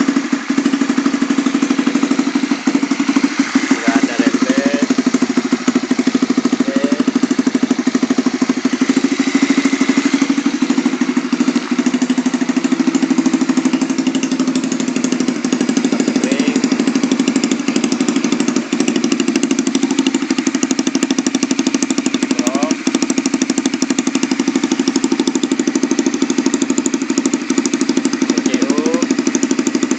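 Honda CB150R's single-cylinder engine idling steadily at an even pace, a used engine that the owner presents as still in good shape.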